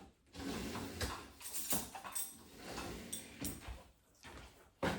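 Kitchen handling sounds: chopsticks and dishes being moved, with irregular light knocks and rustling and a sharper knock near the end.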